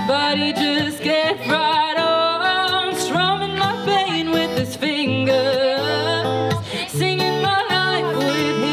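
A woman singing a song with acoustic guitar accompaniment, her melody sliding and wavering over held lower notes.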